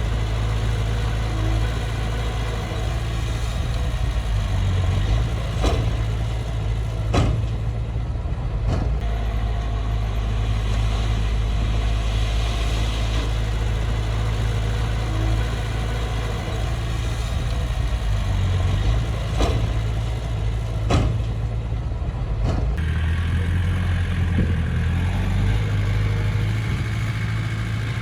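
Diesel engine of a Komatsu D20P crawler bulldozer running steadily under work, with several sharp metallic knocks scattered through. The engine note shifts about three quarters of the way in.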